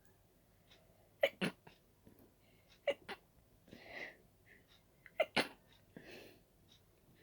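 A person sneezing from a dust allergy: three pairs of short, sharp sneezes in quick succession, with breathy inhales between them.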